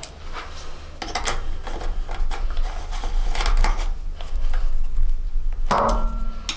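Small metallic clicks and scrapes of a 5 mm T-handle Allen key turning bolts as they are done up tight on a motorcycle's rear fender bracket. A louder clink with a short ring comes near the end.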